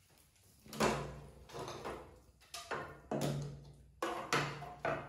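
A metal spatula scraping and knocking in a frying pan, and a lid being set down on the pan: a run of about seven short scrapes and clanks.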